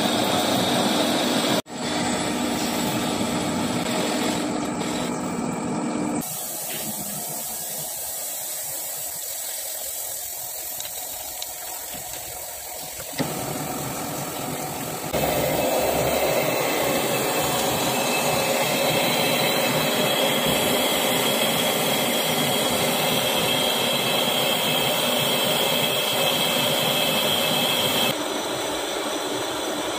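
Metal lathe running: it turns a steel part under flowing coolant, then bores the inside of a steel tube. Steady machine noise and hiss that changes abruptly several times, with a steady high whine in the later part.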